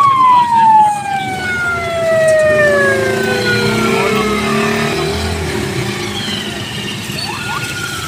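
A siren-like wailing tone that rises quickly and then falls slowly over several seconds, heard twice, once at the start and again near the end, over the steady rumble of a vehicle driving on the road.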